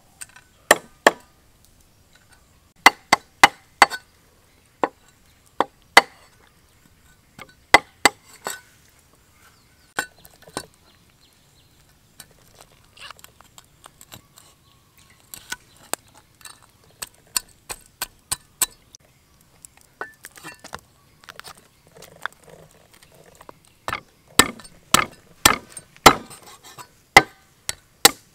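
A steel cleaver knocking and chopping on a round wooden chopping block while small fish are cleaned and cut up. Sharp, irregular knocks come in clusters, softer and sparser in the middle, then in quick runs of chops near the end.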